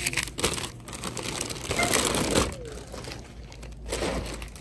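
Thin plastic shopping bags rustling and crinkling as they are handled, the loudest rustle about two seconds in.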